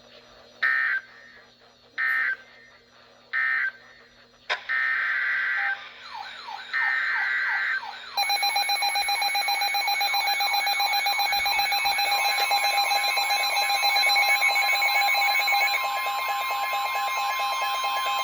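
Emergency Alert System tones from receivers relaying severe thunderstorm warnings. First come three short data bursts, the end-of-message signal of the previous warning. Next come two longer data bursts, then from about eight seconds a continuous alert tone with a rapid warbling beep over it, and a second steady tone joins around twelve seconds.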